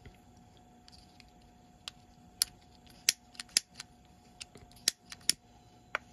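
Long-necked utility lighter's igniter clicking over and over, about a dozen sharp irregular clicks, as it is tried until the flame catches near the end.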